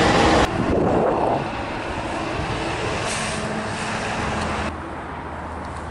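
Road traffic noise outdoors. A louder, busy noise cuts off abruptly about half a second in, and the sound drops to a quieter low hum near the end.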